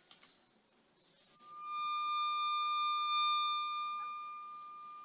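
A single held high musical note, steady in pitch, that swells in and then slowly fades away.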